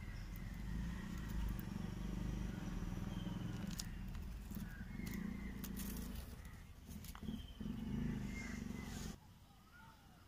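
Outdoor ambience: a low rumbling noise with scattered clicks, and birds chirping with short calls that fall in pitch. The rumble cuts off suddenly about nine seconds in, leaving quieter bird calls.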